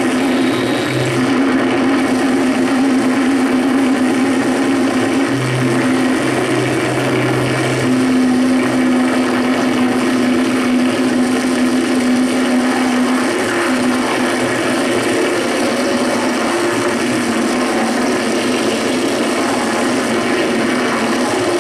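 Electronic noise music from a long table of chained effects pedals: a dense, unbroken wall of noise with a low held drone that breaks off and returns several times.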